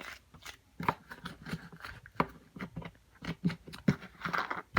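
Slime and its small plastic container being handled: an irregular string of small clicks, pops and squishes, several a second.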